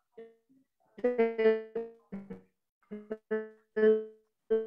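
A woman's voice coming through a video call with a bad connection, breaking up into choppy, robotic fragments: a string of short, buzzy notes all at one pitch, like an electric piano, instead of words. This garbling comes from the call's signal dropping out.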